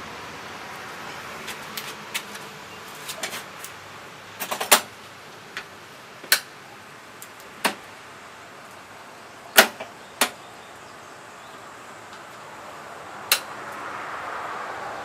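Hand work on a lawn mower's self-propel drive: a dozen or so irregular sharp clicks and knocks, the loudest about five and ten seconds in.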